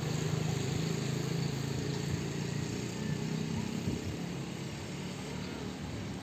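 A motor vehicle's engine running steadily, a low hum with traffic noise.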